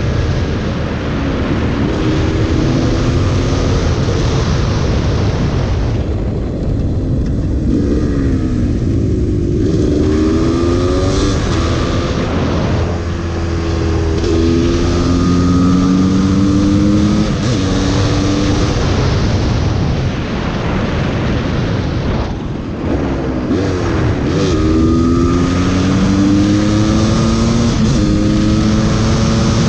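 Gas Gas EC300 supermoto's single-cylinder engine pulling hard through the gears: its pitch climbs, drops at each upshift and climbs again, several times over. Heavy wind rush on the helmet microphone runs underneath, and the engine eases off for a few seconds near the start before accelerating again.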